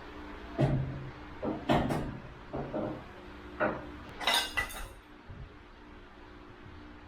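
Steel leaf springs clanking and knocking as they are handled and lifted into position under a ute: about seven sharp metallic hits in the first five seconds, some ringing briefly, then quieter.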